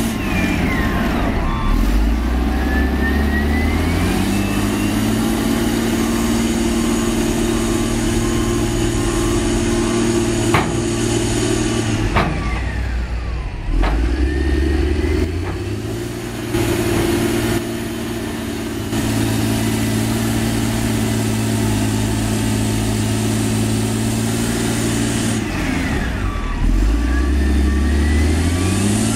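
Dynapac CT300 compactor's diesel engine working under load. Its revs dip and climb back three times, with a whine rising and falling along with it and a short run of beeping at each dip, and one sharp click about ten seconds in.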